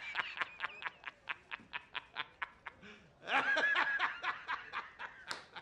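A person laughing: a quick run of short laughs about five a second, a louder stretch with rising and falling pitch about three seconds in, then more short laughs.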